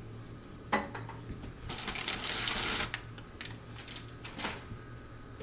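Styrofoam and cardboard packing being handled and pulled from a box: a sharp knock about a second in, a scraping rustle around two seconds in, and a shorter rustle near the end.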